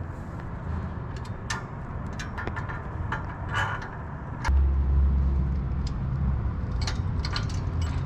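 Light metallic clicks and clinks of steel crash-bar parts, bolts and a spacer being handled and fitted. About halfway through, a louder low rumble sets in and carries on.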